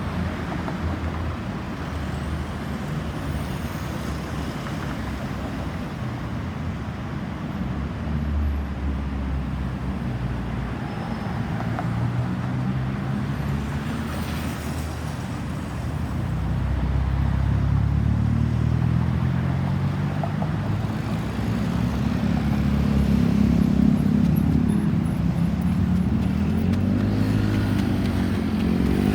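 Road traffic: vehicle engines running and passing, growing louder in the second half.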